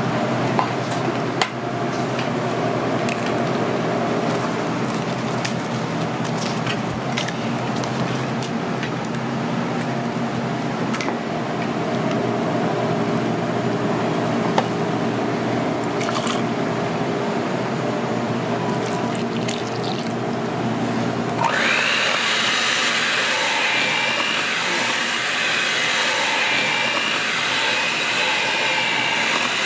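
Liquids poured and ingredients dropped into a steel bowl of flour, with a few light clicks over a steady kitchen hum. About 21 seconds in an electric hand mixer switches on and runs with a steady high whine, its beaters working the cake batter.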